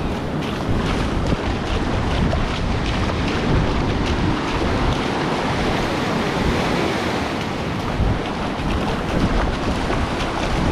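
North Sea surf breaking and washing up the shore, with heavy wind noise on the microphone.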